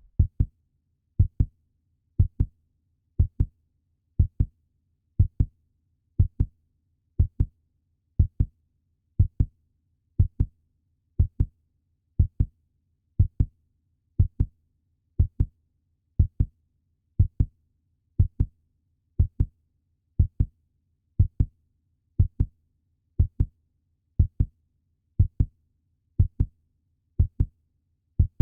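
Heartbeat sound effect billed as a puppy's heartbeat: a steady double thump, lub-dub, about once a second.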